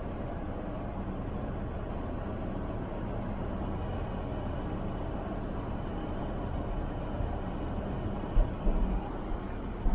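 Steady cabin rumble of a car driving on snow-covered streets: engine and tyre noise, with a few low thumps near the end.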